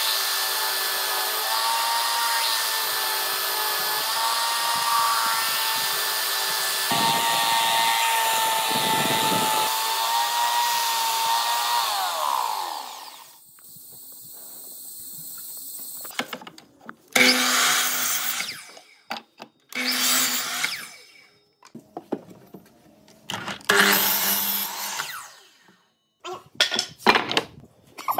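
Belt sander running with a steady whine as a pine block is pressed against the belt, then spinning down about twelve seconds in. After it stops, a few short, separate noises of wood pieces being handled follow.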